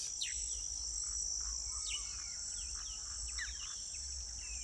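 Insects keep up a steady high-pitched trill while a small bird gives short, quick falling chirps again and again: the 'chip, chip' call that the recordist could not identify.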